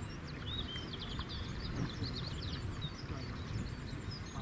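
Small birds singing, a busy run of quick high chirps and whistles, over a steady low rumbling noise.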